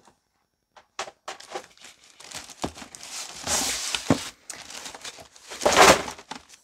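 Packing material crinkling and rustling as graded comic book slabs are handled and taken out, with a few light knocks. The rustle grows and is loudest near the end.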